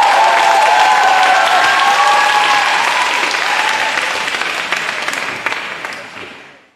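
Audience applauding, with a few voices calling out over the clapping for the first few seconds; the applause fades out near the end.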